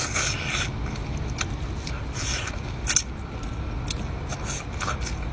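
Scattered sharp clicks and short scraping noises from a lobster's hard shell being handled and pulled apart.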